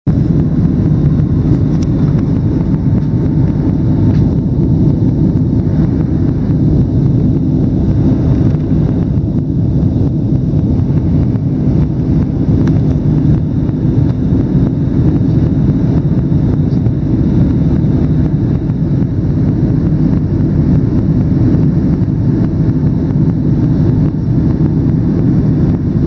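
Steady low drone of an airliner in flight, its engines and rushing air heard from inside the cabin.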